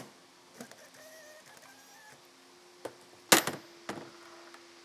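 Sharp knocks and clicks of parts or tools being handled at a workbench, three in quick succession past the middle, the second the loudest, over a faint steady hum.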